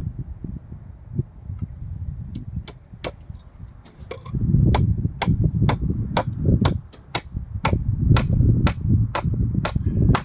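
Hammer striking nails into timber: a few blows, a short pause, then a steady run of blows about two a second, over a low rumbling.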